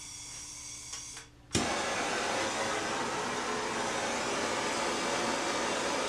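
Handheld gas torch: gas hisses briefly, then the torch lights with a sudden pop about a second and a half in and burns with a steady, loud rushing flame.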